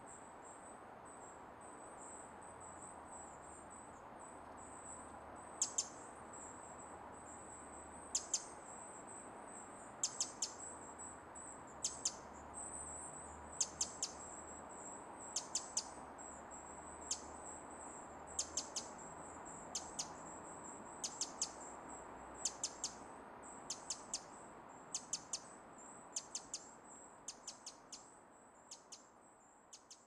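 Pacific wren giving sharp, high call notes, mostly in quick twos and threes, repeated every second or two from about five seconds in and fading near the end. Under the calls runs a steady high-pitched hum.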